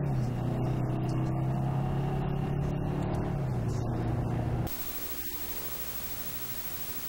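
A vehicle engine idling steadily, cut off abruptly about two-thirds of the way in, leaving only a steady hiss of room noise.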